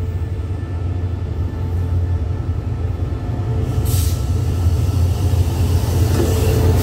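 State Railway of Thailand diesel locomotive approaching and running past along the platform, its low engine drone growing steadily louder. A short hiss comes about four seconds in, and the noise of the locomotive and coaches going by swells near the end.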